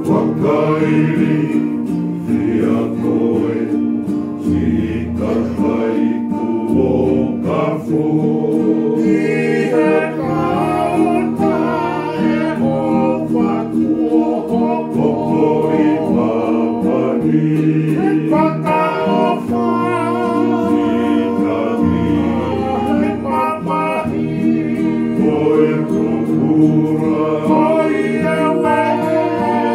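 Men singing together to acoustic guitars: a continuous song with steady low notes under the voices.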